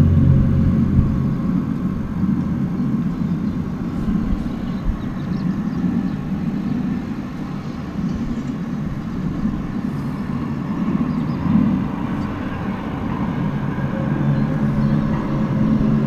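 Low droning rumble with a steady hum, stronger at the start and again near the end: an unexplained outdoor noise, heard through an open skylight, that the recorder calls really strange.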